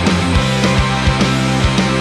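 Background music with a steady drum beat and sustained low notes.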